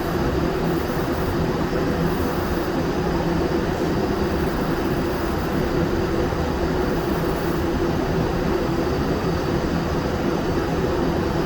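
Powder-coating equipment running: a steady hum with a rush of air while powder is sprayed onto steel.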